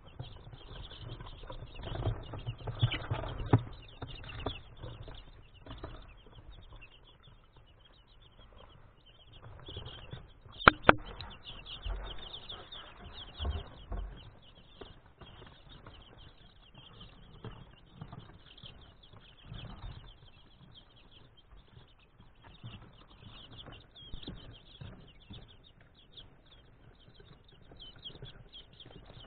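A flock of eight-day-old chicks peeping in a brooder: many short, high cheeps overlapping continuously, with scratching and pattering in the wood shavings. There are some low bumps a couple of seconds in and two sharp knocks about eleven seconds in.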